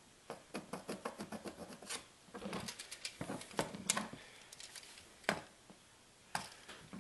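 Pencil marking on a plastic storage tote lid: quick runs of scratchy strokes and taps for about four seconds, then two single sharp clicks near the end.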